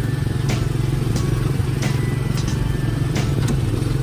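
Small gasoline engine of a Tomorrowland Speedway ride car running steadily as the car drives along its track, with a sharp knock about every half second to second.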